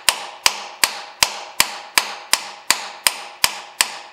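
Quick, even taps on a steel shift fork in a Monarch lathe gearbox, nearly three a second, each with a short metallic ring. The tapping is working a stuck retaining pin out of the fork.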